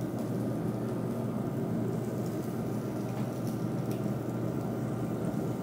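Beef grilling on a tabletop grill: a steady sizzle with a few faint pops.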